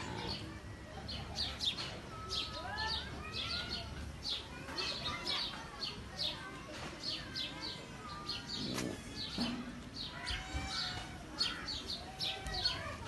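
A mixed chorus of aviary birds: many short, high chirps in quick succession, with a few softer arched calls from a larger bird now and then.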